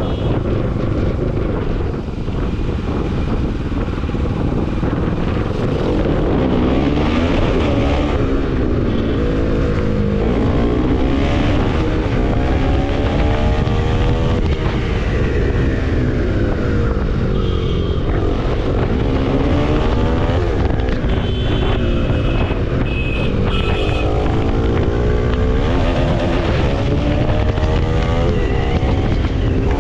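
Motorcycle engine running under way, its pitch climbing and dropping again and again as the rider accelerates and shifts gears, over a steady low rumble.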